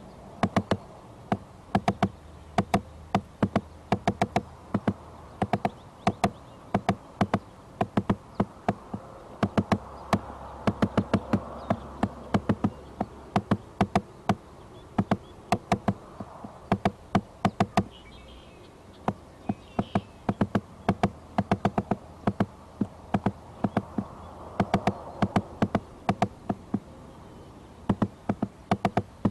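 Woodpecker pecking on a tree right beside the microphone: loud, sharp taps in short uneven bursts of two to four, about a second apart, over a steady buzzing hum.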